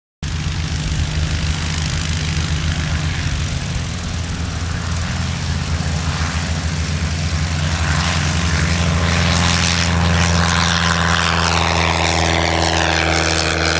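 Light aircraft's piston engine and propeller running at takeoff power as a Cub-style high-wing plane rolls down the runway and climbs away. It is steady and loud, growing a little louder about two-thirds of the way through as the plane passes.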